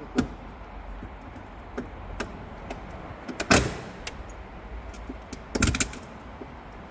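Scattered knocks and clatters of parts and tools being handled as a car is stripped. The loudest is about three and a half seconds in, and a quick cluster of rattles comes near six seconds.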